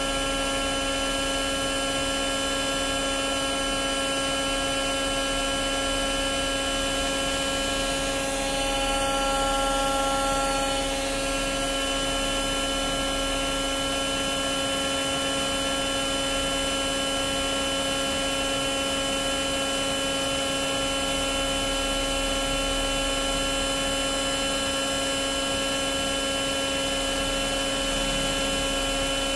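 Gildemeister GD 130 CNC lathe running: a steady hum and whine of several tones from its motors and drives. An extra, slightly louder whine joins for about two seconds, nine to eleven seconds in.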